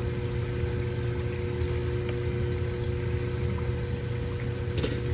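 Hot vegetable oil sizzling in an electric skillet, over a steady low hum, with a short click near the end.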